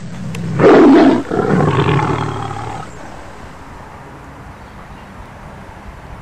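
Tiger roaring twice: a short, very loud roar about half a second in, then a longer one that fades away by about three seconds.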